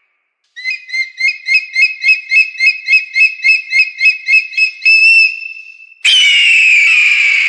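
Eagle calling: a rapid series of high, piping whistled notes, about four or five a second, ending in a briefly held note. Then a loud, long, slightly falling scream comes about six seconds in and fades away.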